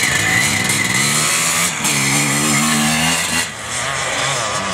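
Vintage enduro motorcycle's engine running hard as the bike accelerates along a dirt course and up a climb. A clear pitched engine note stands out from about two to three seconds in, then the sound dips briefly.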